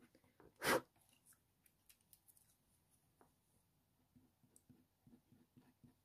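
Faint, quick, repeated strokes of a slice tool scratching on hot-press watercolour paper, with one short, loud noise under a second in.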